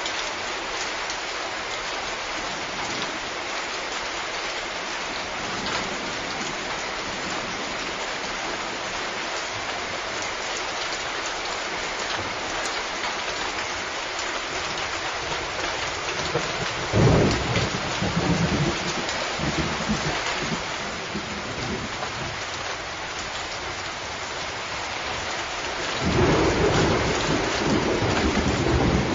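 Steady heavy rain hissing, with two rolls of thunder rumbling in: a short one about two-thirds of the way through and a longer, louder one near the end.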